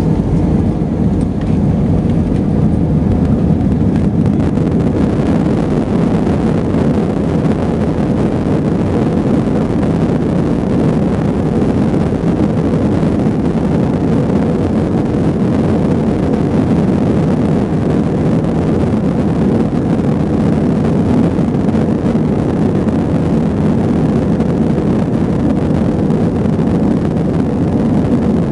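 Airbus A320 jet engines at takeoff power: a loud, steady, deep rumble that holds level throughout.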